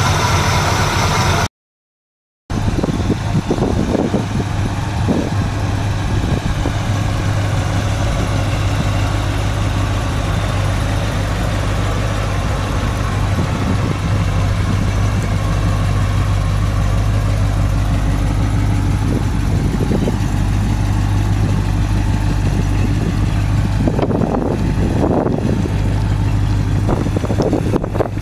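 1986 GMC Jimmy's 350 V8 running steadily at low speed as the truck rolls off, with the sound cutting out for about a second near the start.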